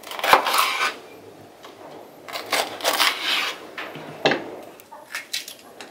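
Kitchen knife slicing through a green bell pepper on a wooden cutting board: crisp crunching cuts in a few quick groups, with the blade knocking the board, the sharpest knock just after four seconds in.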